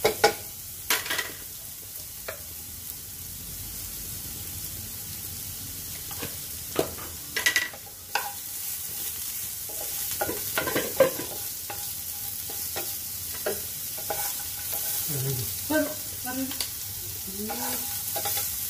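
Carrot sticks sizzling as they fry in a non-stick frying pan, stirred with a wooden spatula that scrapes and knocks against the pan now and then.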